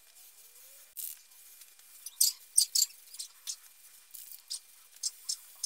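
Aerosol spray paint can sprayed in a series of short hissing bursts, about nine in all starting about a second in, as light coats of paint go onto wooden panels.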